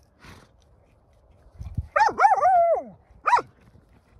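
Dog whining and yipping: a few quick rising-and-falling yelps run into a held whine that slides down in pitch, followed by one short yip.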